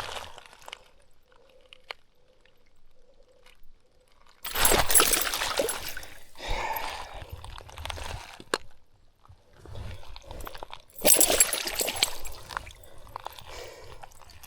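Water splashing and sloshing in two loud bursts, about four and a half seconds in and again about eleven seconds in, with quieter splashing between.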